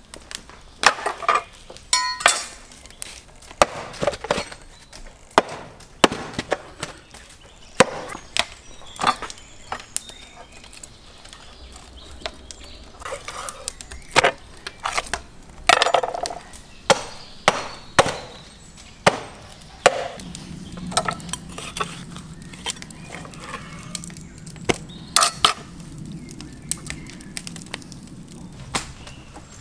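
Knife cutting and chopping through lamb ribs on a wooden chopping board: sharp, irregular chops and knocks against the board, roughly one a second.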